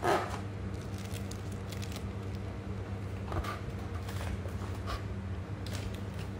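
Clear plastic packaging crinkling as it is handled, with one loud crackle at the start and a few brief rustles later, over a steady low hum.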